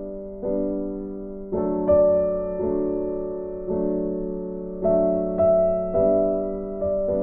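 Background music: soft piano or electric-piano chords, struck about once a second and each left to fade.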